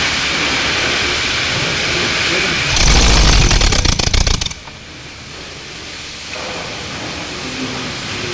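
Hybrid car's petrol engine running with a steady rumble, then a louder burst of rapid pulsing for about a second and a half, after which the running sound drops away sharply. The engine is one being checked for a misfire.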